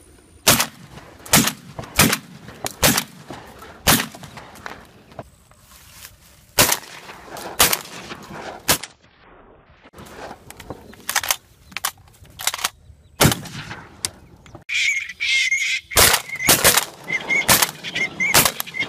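Shotgun shots fired at ducks in flight, a long irregular string of sharp cracks that often come in quick pairs or triples. In the last few seconds ducks quack between the shots.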